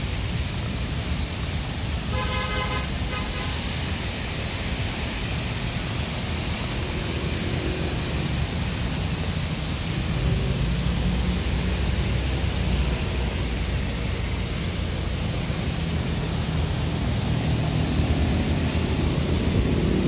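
Wet city traffic running steadily past in the rain, with tyres hissing and engines rumbling, and a vehicle horn sounding briefly about two seconds in.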